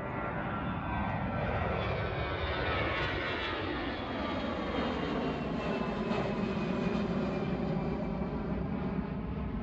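Airbus jet airliner climbing out just after takeoff and passing overhead, its engines running at takeoff thrust. The sound grows louder about a second in, and the engine whine falls steadily in pitch as the aircraft goes by, leaving a steady jet rumble.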